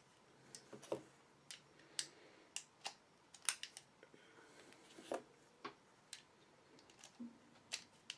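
9mm cartridges being pushed one at a time into a Glock 17 magazine with a +3 extension: a series of sharp metallic clicks, roughly one every half second to second, as each round snaps under the feed lips against the spring.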